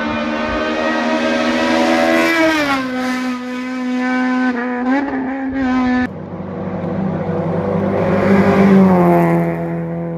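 Rally car engines at high revs approaching on the stage: one engine holds a steady note, drops in pitch about two and a half seconds in and wavers. About six seconds in the sound breaks off abruptly and another engine note takes over, climbing and then dropping again near the end.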